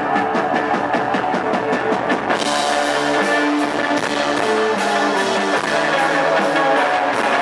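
A post-punk rock band playing live: electric guitars over drums. At first a fast, even pulse, then a little over two seconds in the band comes in fuller and brighter, with cymbals.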